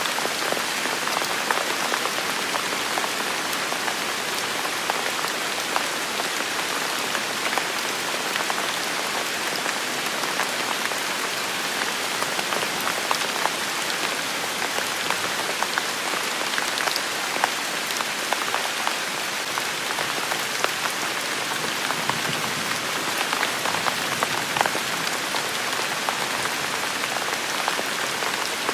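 Steady rain falling on a hard surface, a dense even hiss with many individual drops pattering through it.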